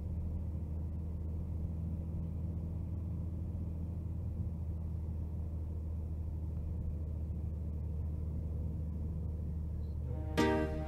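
Steady low rumble of a car driving, heard from inside the cabin. Music starts just before the end.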